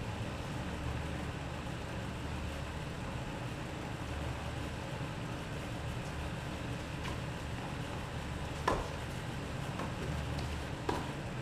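Tennis ball being hit in a rally: a few sharp pops about a second apart in the second half, the loudest two about two seconds apart, over a steady low background rumble.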